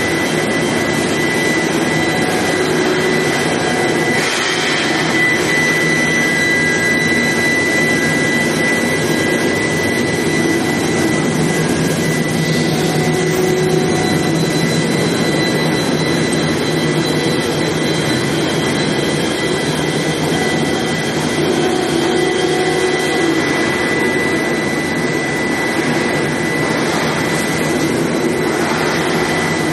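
Medium-frequency induction hardening and tempering line for oil drill pipe running steadily: a constant industrial drone with a high, steady whine on top.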